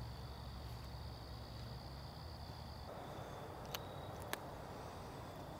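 Night insects trilling steadily over a low outdoor rumble. About three seconds in the background shifts, and two sharp clicks come about half a second apart as fishing gear is handled.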